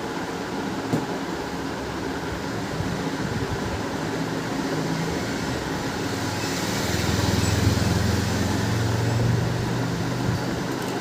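Steady mechanical background hum and hiss, with a low rumble that swells for about three seconds in the middle and then falls back.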